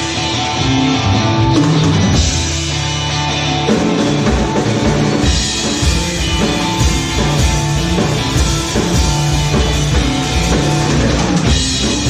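Psychedelic rock music with drum kit and guitar. The drumming becomes a dense, steady beat about four seconds in.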